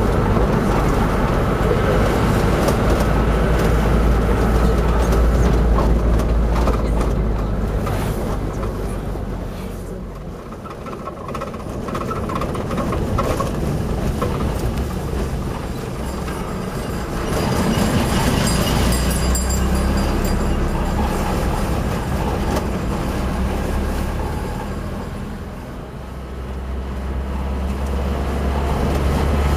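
Taxi engine and road noise heard from inside the moving car. The rumble eases off twice, about ten seconds in and again near the end.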